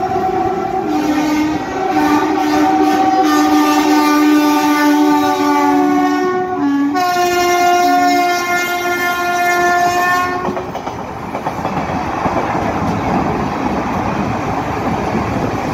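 Train horn sounding in long blasts for about ten seconds, its pitch stepping between notes with a couple of short breaks. After it stops, the steady rumble and clatter of a train running on the rails.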